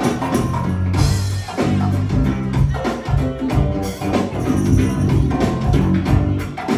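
Live go-go band playing an instrumental groove: a bass line, drum kit and percussion keep a steady beat, with no vocals.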